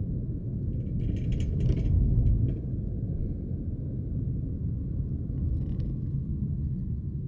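Low, steady rumble of a car driving, heard from inside the cabin: engine and road noise, swelling a little about two seconds in.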